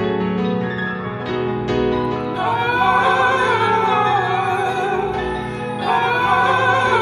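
Outro music: piano notes, joined about two and a half seconds in by a long, wavering sung vocal line that glides down, with a second vocal phrase coming in near the end.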